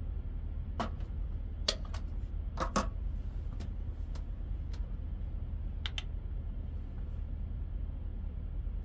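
Scattered light clicks and taps of metal tongs and a plastic squeeze bottle being set down and handled on a slatted camp table, heaviest in the first three seconds with another pair about six seconds in, over a steady low rumble.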